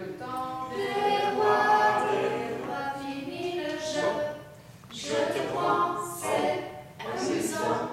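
Mixed choir of men's and women's voices singing together in three phrases, with short breaks between them.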